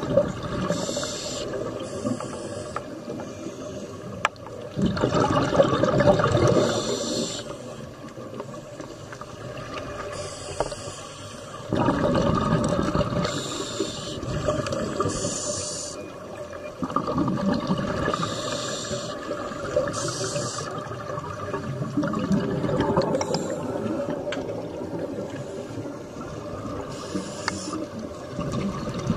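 Scuba diver breathing through a regulator underwater: a short hissing inhale through the demand valve, then a louder rush of bubbling exhaust, repeating about every five seconds.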